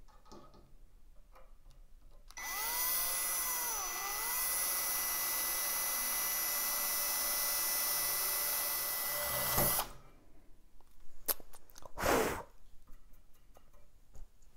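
Cordless drill running for about seven seconds, driving a small bit through an aluminum rod held in a vise. Its steady motor whine dips briefly in pitch a second or two in as the bit loads up, then stops with a low clunk.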